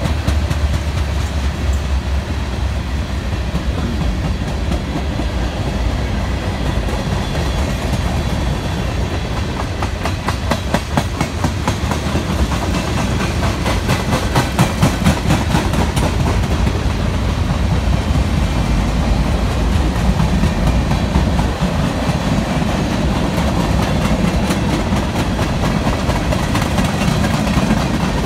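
Freight train cars, tank cars and covered hoppers, rolling past with a steady low rumble and a rapid run of steel-wheel clicks over rail joints that grows thicker through the second half.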